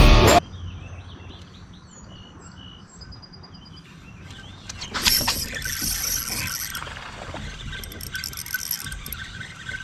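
Songbirds chirping over quiet riverside ambience, then, from about halfway, the louder sounds of a spinning rod and reel being worked as the reel is cranked.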